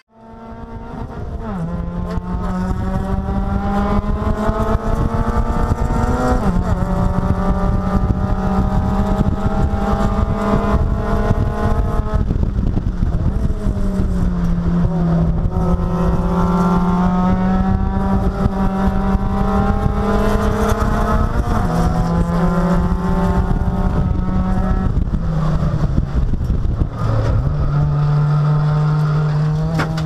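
Race car engine heard from inside the cockpit, pulling hard at high revs. The engine note steps down and back up several times through the run as gears are changed and the car brakes and accelerates.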